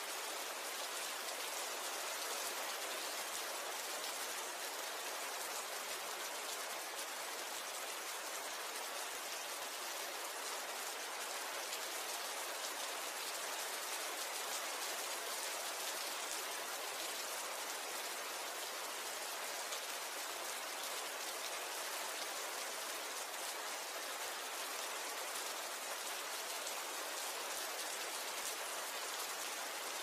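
Steady rainfall, an even hiss of falling rain with dense tiny pattering and no thunder.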